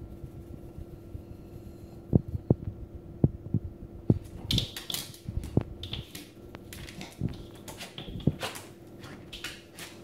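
A Maltese puppy's claws scratching and scraping against a door panel as it jumps up at the door, a rapid run of scratchy strokes from about four seconds in until near the end. It is preceded by a few sharp soft knocks, and a steady low hum runs underneath.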